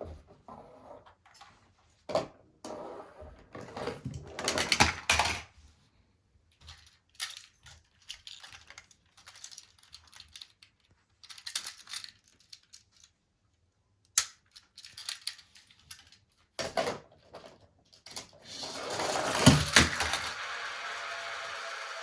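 Plastic toy vehicles being handled and run along, giving irregular clicks, clacks and short rattles, with a longer, louder continuous rattle near the end.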